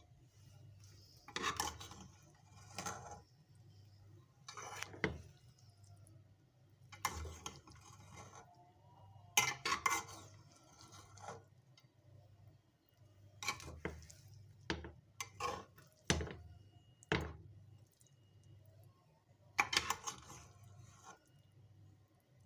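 Metal spoon scraping and clinking against a cooking pot and dish as cooked biryani rice is scooped out, in irregular strokes every second or two.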